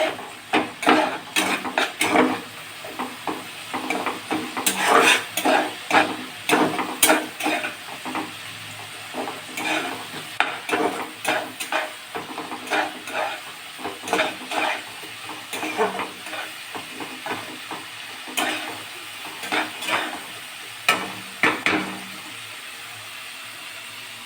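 Onions and ginger-garlic paste frying in a pan with a steady sizzle, stirred by a spatula that scrapes the pan in many quick, irregular strokes, which thin out near the end.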